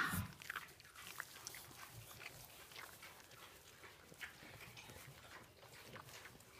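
Piglets rooting in straw bedding: rustling and small grunts, with one louder grunt at the very start.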